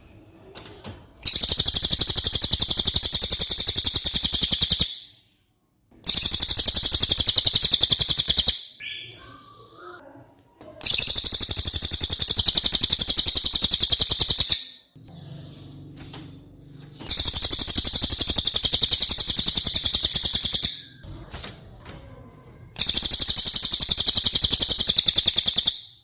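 Cililin songbird singing: five long bouts of a rapid, high-pitched trill of fast repeated notes, each lasting three to four seconds, with short pauses between them.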